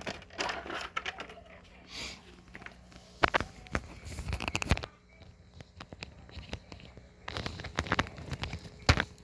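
Handling noises: scattered sharp clicks, light knocks and rustling, with no motor running.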